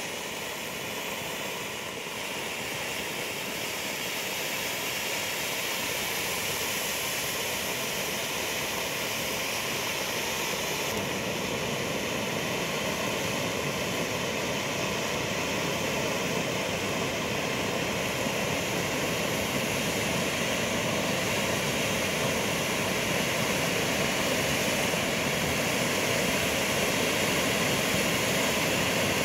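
Two Bugano/Zink category F3 firework fountains, Metal Pink and Magic Light, burning side by side: a steady rushing hiss of spark jets that grows gradually louder.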